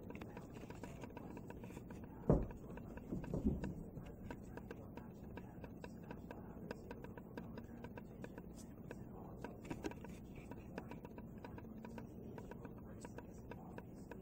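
Crows tapping on a skylight and roof overhead: faint, irregular clicking taps throughout, with one louder thump about two seconds in and a few softer bumps about a second later.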